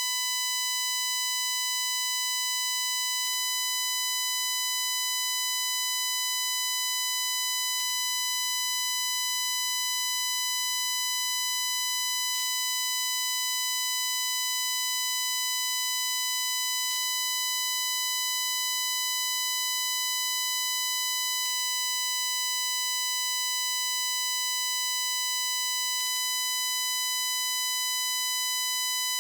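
Continuous high-pitched electronic buzzing from a recording glitch in a phone and external stereo microphone setup: one steady, shrill tone with a ladder of overtones and no change in pitch or level. Faint ticks recur about every four and a half seconds.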